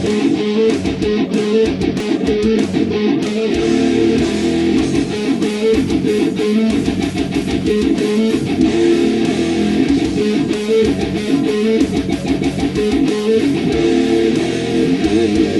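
Jackson JS12 electric guitar strung with Elixir strings, played without a break in quick, dense picked and strummed strokes.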